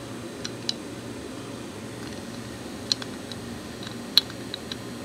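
Scattered light clicks and taps, the loudest a little after four seconds in, from the aluminium intake piece being handled against the engine's cast intake, over a steady low background hum.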